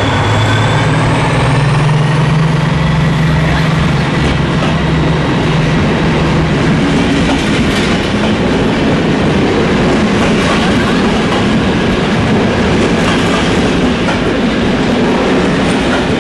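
Passenger train rolling along the platform at close range: a low steady drone that fades about seven seconds in, over a continuous rumble of wheels, with repeated clicks of the wheels over rail joints.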